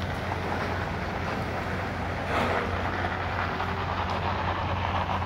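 Ford Bronco SUV rolling off the bottom of a steel ramp and pulling away at low speed, its engine running over a steady low hum, briefly louder about halfway through.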